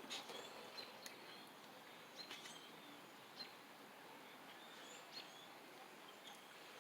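Near silence: faint bird chirps with a few light clicks.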